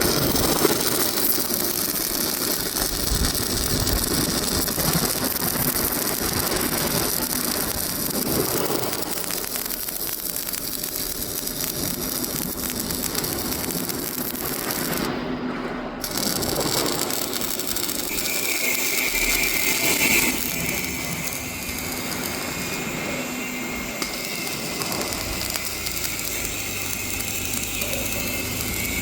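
Arc welding on a JCB excavator bucket: a continuous harsh crackle. A short break comes at about the halfway point, and a steady high whine joins a few seconds later.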